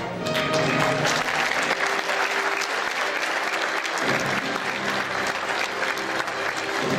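Audience applauding with steady, dense clapping, with music playing underneath whose bass comes in about four seconds in.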